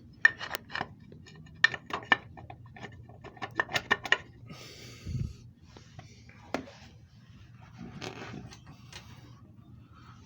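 Metal parts clinking, knocking and scraping as a new engine mount is worked into place on the car, with a quick run of sharp clinks at first, a scrape and a dull thump midway, and more scraping near the end.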